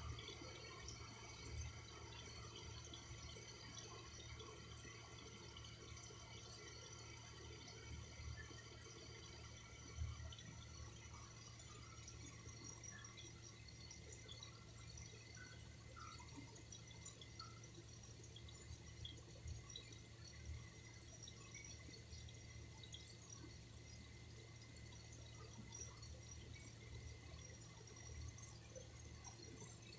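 Faint running water with scattered drips, a little louder during the first ten seconds or so.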